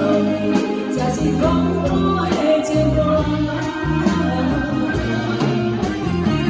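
Song performance: a woman singing over a backing of bass and guitar, the music running steadily throughout.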